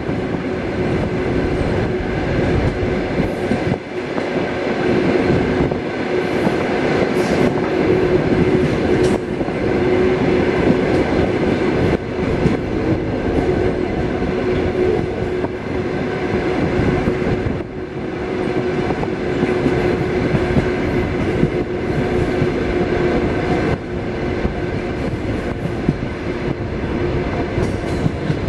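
Suburban passenger train running at speed, heard from the last carriage: a steady rumble of wheels on rails with a steady hum and a few sharper clicks from the track.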